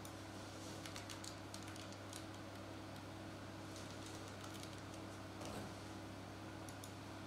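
Faint computer-keyboard typing: scattered quick key clicks over a steady low hum.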